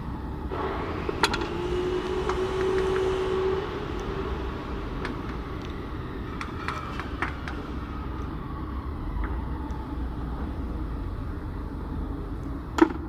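Repair-shop noise: a steady low mechanical rumble with a whine held for a few seconds early on, scattered metallic clicks and taps, and one sharp metal clank near the end.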